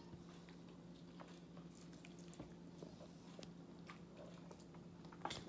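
Faint eating sounds: quiet chewing and a few small clicks, over a steady low hum.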